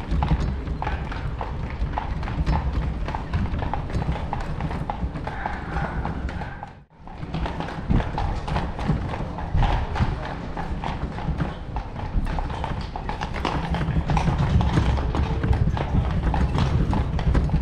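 Horse-drawn carriage: the horse's hooves clip-clopping in a steady rhythm on cobblestones, over a low steady rumble. The sound cuts out briefly about seven seconds in.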